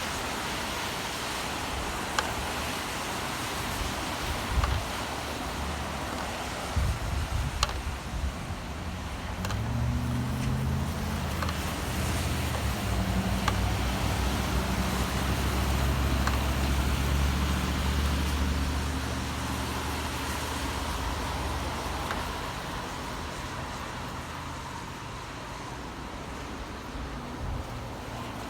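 Steady rain hiss over city traffic, with scattered sharp drip ticks. A vehicle engine's low hum comes up about ten seconds in and fades away a few seconds after twenty.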